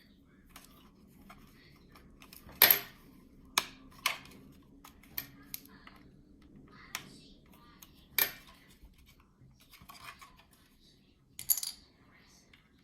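Small hard plastic 3D-printed parts clicking and clacking as they are handled and knocked together, in irregular sharp strikes with two louder clacks, one about a third of the way in and one past halfway.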